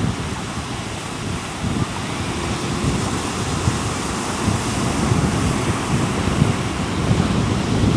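Ocean surf breaking and washing up the beach in a steady rush, with wind buffeting the microphone in irregular low gusts.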